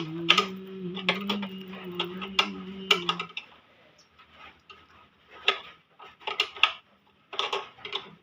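A series of sharp metallic clicks and taps. For about the first three seconds a steady low hum runs under them, then it stops and only scattered clicks remain.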